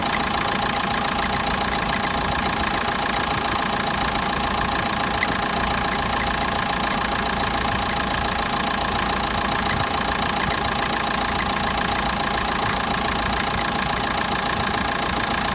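Renault K9K 1.5 dCi diesel engine idling steadily, with a fast even ticking and a steady whine over the engine sound. The owner hears an extraneous noise in it and is trying to find its cause.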